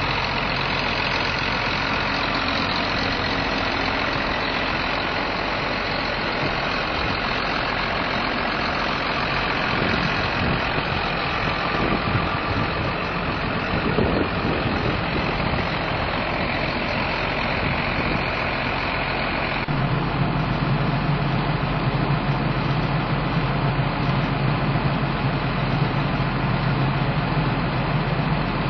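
John Deere 7820 tractor's six-cylinder diesel engine idling steadily. A little past two-thirds of the way through, the sound abruptly turns louder and deeper.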